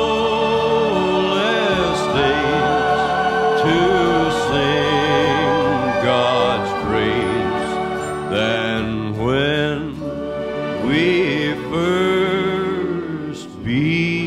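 Background music: a singer holding long notes with a wide vibrato over instrumental accompaniment.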